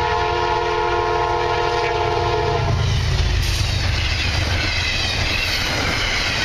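Amtrak P32AC-DM diesel locomotive sounding its multi-note horn, held steady and cut off a bit under three seconds in. The rumble and wheel clatter of its passenger cars rushing past over the crossing follow.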